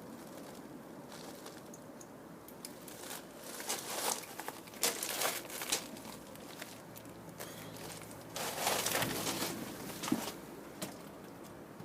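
Rustling and crinkling with small clicks and knocks from hands working with a hard start capacitor kit's wires and parts inside an air conditioner, in two busy spells and ending with a sharp click about ten seconds in.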